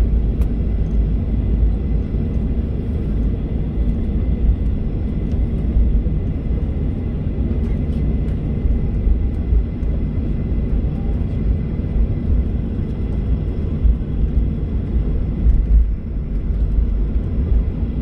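Jet airliner heard from inside the cabin while taxiing: a steady low rumble of the engines and the wheels rolling on the taxiway, with a faint high steady whine.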